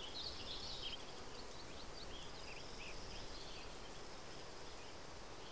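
Faint natural outdoor ambience: a low, even hiss with short, high chirps scattered throughout.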